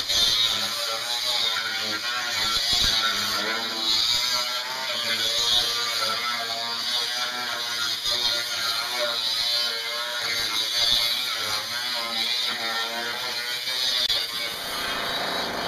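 Angle grinder with a thin cut-off wheel cutting through a van's rusty sheet-steel floor pan, running continuously with its pitch wavering as the wheel bites into the cut.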